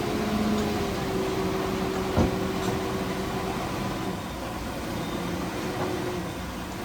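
Heavy earthmoving machinery's diesel engine running steadily, with one sharp clank a little over two seconds in.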